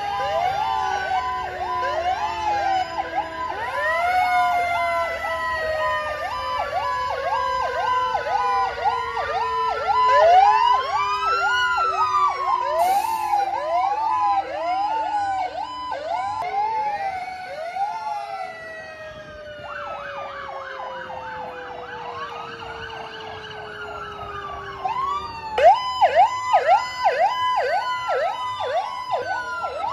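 Several fire apparatus sirens sound at once, overlapping. Rising-and-falling wails mix with fast yelping sweeps, and long tones slide slowly down in pitch. The sound eases for a few seconds past the middle, then the fast yelping comes back loud near the end.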